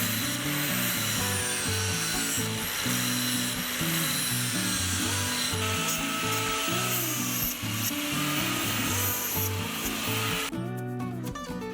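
Background music over a power sander grinding sheet metal: a dense, hissing grind with a whine that slides in pitch. The grinding stops about ten and a half seconds in, and the music carries on alone.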